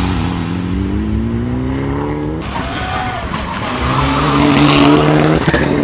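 Mitsubishi Lancer Evolution X rally car's turbocharged four-cylinder engine accelerating hard, its pitch rising for about two seconds. The sound then changes abruptly to the engine held at a steady note with tyre squeal as the car corners.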